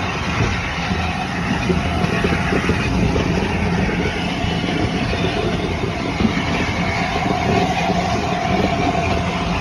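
Steam-hauled passenger train, led by the LNER A4 Pacific Sir Nigel Gresley, running along the line, heard from a carriage window: a steady rumble and clatter of wheels on rail. A faint whine comes in for a few seconds past the middle.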